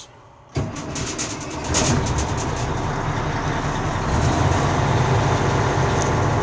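Caterpillar 3406E diesel engine in a Mack Cruiseliner truck starting up, on its first start after a bad fuel line was replaced. It turns over with a quick run of pulses about half a second in, catches, and settles into a steady run.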